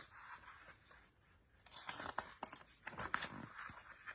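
Faint paper rustling and crinkling from handling a picture book, typical of a page being turned, mostly in the second half.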